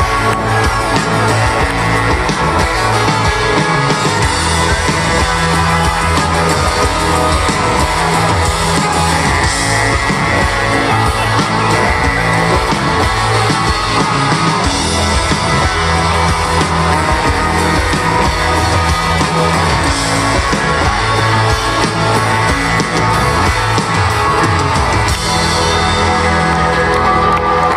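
Live rock band playing loud through a PA: electric guitars, bass guitar and drums keeping a steady beat, heard from within the audience.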